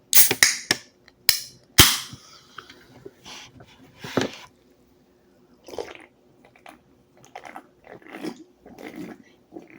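Sharp clicks and knocks, then a loud crack almost two seconds in with a short fizzing hiss after it, like a carbonated drink being opened. A fuller throat sound follows a couple of seconds later, then a run of softer gulping and throat sounds.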